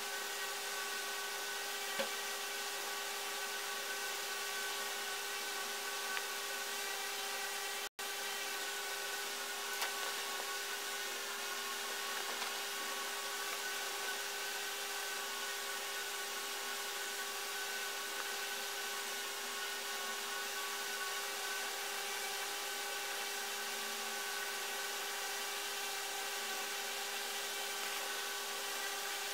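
A steady drone made of several fixed tones, like a small motor or fan running. It drops out for an instant about eight seconds in.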